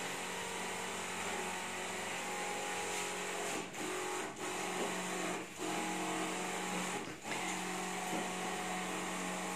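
Electric pump of a Dragon Star 14-litre stainless backpack sprayer running steadily with a hum while spraying disinfectant, the sound dipping briefly four times.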